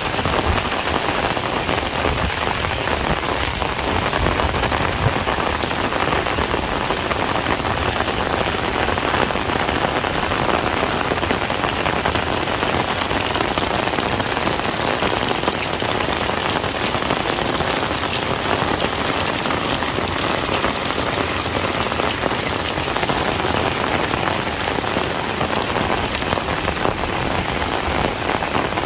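Heavy rain falling steadily on a surface, a dense even patter.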